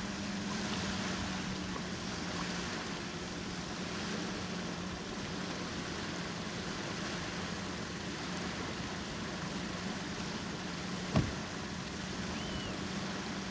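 Hyundai Accent engine idling steadily, with a single car door shut about 11 seconds in.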